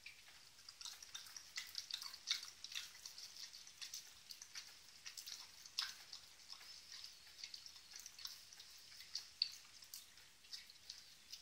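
Faint, irregular wet clicks and smacks, a few a second: the mouth sounds of a mother dog lapping from a glass water bowl while her nine-day-old puppies suckle.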